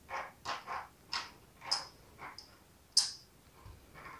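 Thin clear plastic blister tray crinkling and clicking as tiny plastic toy baguettes are pressed out of it by hand: a string of short, soft clicks, the sharpest about three seconds in.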